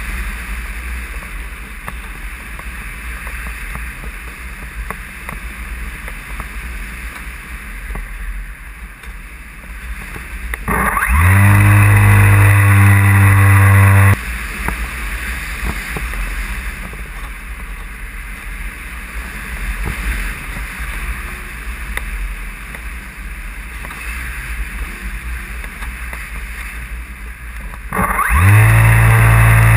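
Airflow rushing past a radio-controlled powered glider as it glides, broken twice by its electric motor and folding propeller spinning up with a quick rising whine and running steadily: for about three seconds roughly a third of the way in, cutting off suddenly, and again starting near the end.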